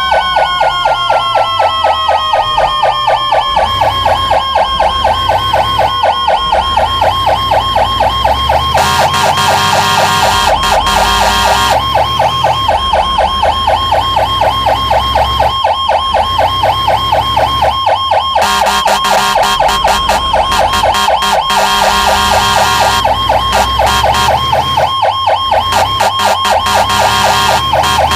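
Fire truck siren on an emergency run, a rapid electronic yelp warbling about five times a second, with a second siren tone falling in pitch over the first several seconds. The truck's engine rumbles underneath.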